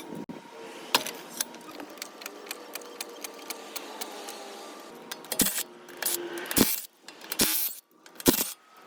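Metallic clicks and knocks of work with hand tools, with a few louder sharp knocks in the second half.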